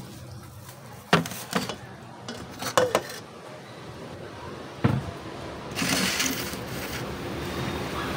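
A few sharp clinks and knocks on a stainless steel bowl in the first five seconds. Then a steady wet squishing and plastic-glove rustle as a gloved hand mixes marinated pork pieces in the bowl.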